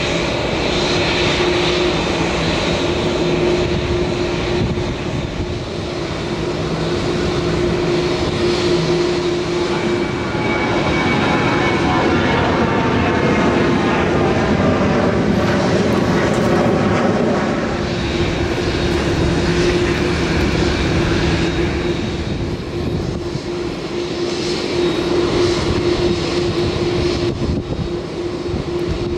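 Jet airliner engine noise: a steady hum with a constant tone under it. In the middle a jet passes, its sound sweeping.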